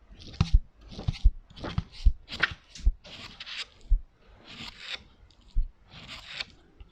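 ASMR tapping and knocking on props: a string of irregular short knocks with low thuds, about one to two a second, alternating with short bursts of crisp rustling.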